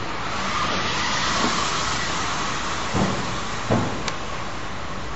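A car drives over a sealed, cover-plated SJS seismic expansion joint. Steady tyre and engine noise carries two soft, dull thuds about three seconds in, as the wheels cross the joint; there is no metallic clanking.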